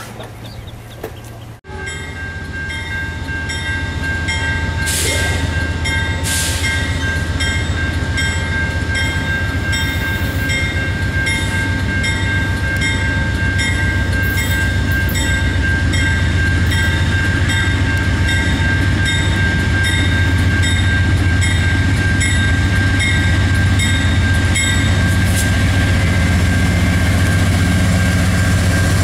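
Grade-crossing warning bells ring steadily while an Amtrak GE P42DC diesel locomotive approaches. The locomotive's low engine rumble grows steadily louder as it nears.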